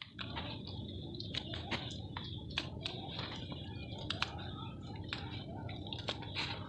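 Sand-and-cement chunks crackling and crumbling: irregular sharp clicks and crunches, a few a second, over a steady low rush.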